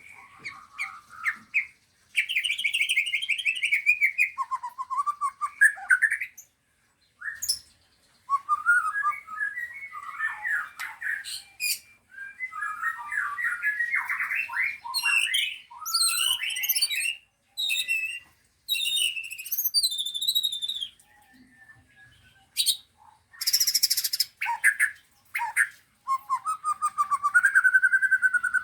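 Songbirds singing: long, varied phrases of warbling, fast trills and rapid chattering notes, broken by a few short pauses.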